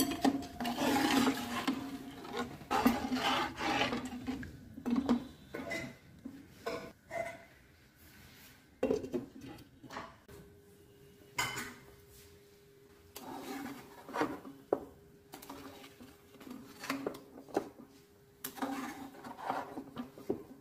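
Metal slotted spoon scraping and knocking against a steel pot while meat is stirred in its cooking broth, with clinks of a glass pot lid. The strokes come thick at first and then sparser, and a faint steady hum comes in about halfway.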